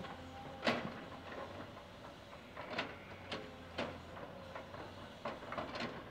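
Komatsu PC200 hydraulic excavator working a rubble pile: its steel bucket knocks and scrapes against chunks of broken demolition rubble in sharp, irregular clanks, several close together near the end, over the machine's steady engine hum and a faint steady whine.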